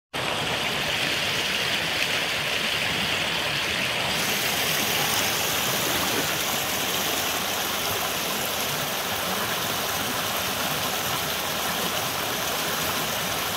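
Shallow rocky stream rushing steadily over stones in small rapids, with a constant splashing hiss that grows brighter from about four seconds in.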